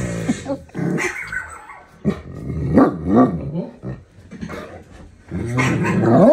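Dogs barking and growling in several short separate calls, with a longer call near the end.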